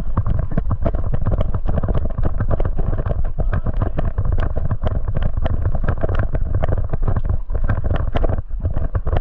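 Quick footsteps with gear rattling, several hits a second, over wind buffeting the microphone.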